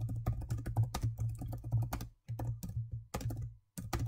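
Typing on a computer keyboard: a quick run of key clicks with two short pauses in the second half.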